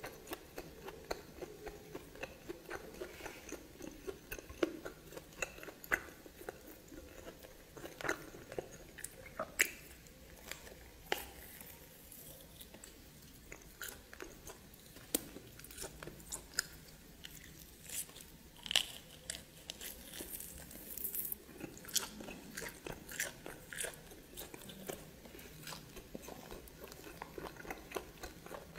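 A person chewing and biting into steamed snake, with many irregular sharp clicks and smacks of the mouth and food.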